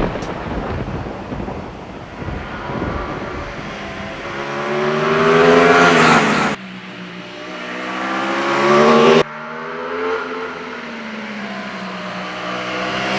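Aprilia Tuono 660 Factory's 659cc parallel-twin engine accelerating hard: the revs climb, drop sharply at an upshift about six and a half seconds in, climb again and drop sharply at a second upshift about nine seconds in, then build once more.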